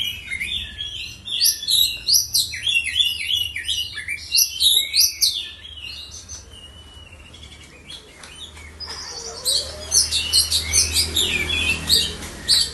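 Oriental magpie-robin (kacer) singing a rapid run of varied chirps and whistled notes. The song pauses about halfway through, then starts again a few seconds later.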